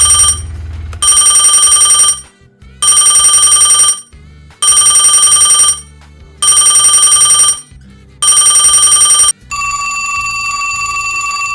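Telephone ringing with a trilling electronic bell: about six rings, each about a second long with short gaps between them. Near the end the ringing gives way to a steady held tone lasting about two seconds.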